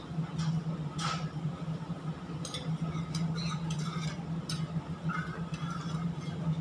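A large stainless pot of sauce bubbling at the boil over a steady low hum, with a few light clinks of a spoon in a small metal bowl of starch slurry.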